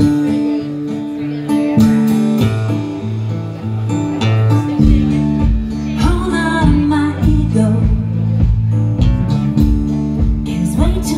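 Live band playing: bass guitar and strummed acoustic guitar, with the kick drum coming in on a steady beat about five seconds in and a voice singing over it.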